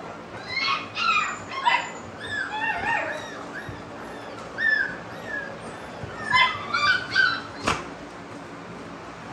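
American bully dogs whining and yipping in short, high-pitched cries, a burst of them in the first few seconds and another about two-thirds through, with a single sharp click shortly after.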